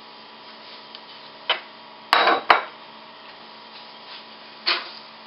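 Kitchen clatter: a few knocks and clinks of dishes and utensils being handled on a counter. The loudest knocks come about two seconds in, and another comes near the end.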